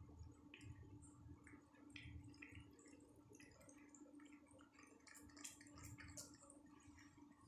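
Cat licking creamy paste from a squeeze-tube treat: faint, quick wet smacking clicks, busiest a little past the middle, over a faint steady hum.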